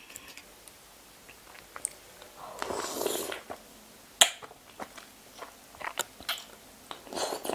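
A person eating a razor clam straight from the shell: a short breathy slurp, then a sharp click about four seconds in, then chewing with small wet clicks.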